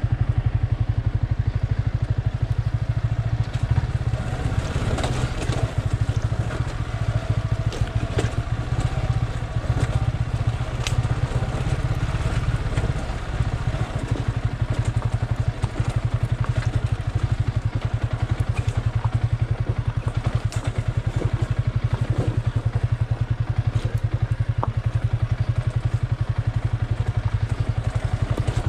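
Yamaha R15 V3's 155 cc single-cylinder engine running steadily at low revs in a low gear as the bike crawls over a rough dirt trail. Tyres crunch over loose stones, with scattered sharp ticks and clatters.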